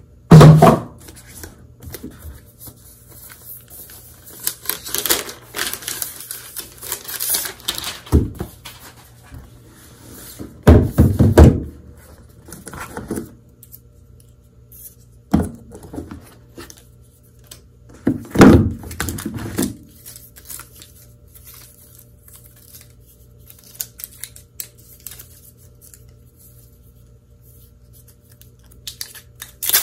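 Unboxing handling sounds: a MacBook Pro lifted out of its cardboard box and set on a wooden table, then its charging cable and power adapter taken out of their packaging. Several thumps and scrapes, the loudest about half a second in, with light clicks and rustling between them.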